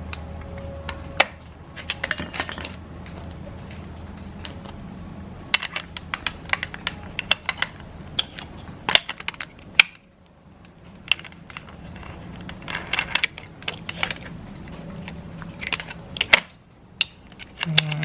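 Irregular metallic clicks and clinks, some ringing briefly, from a wrench and loose parts being handled on a Black and Decker 4½-inch angle grinder as its guard is tightened back in place.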